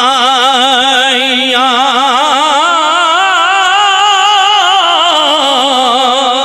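A man's voice chanting one long, drawn-out melismatic line into a microphone, unbroken by words, its pitch wavering with a strong, even vibrato.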